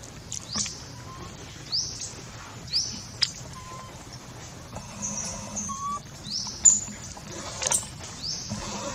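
A bird calling in the forest: about five short, high-pitched rising chirps spaced irregularly, with a couple of sharp clicks between them.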